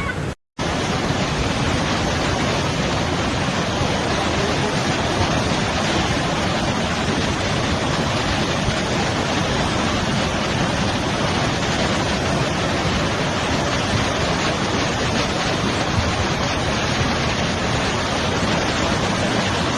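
Floodwater rushing in a flash flood, a loud steady rush with no let-up, after a brief dropout to silence about half a second in.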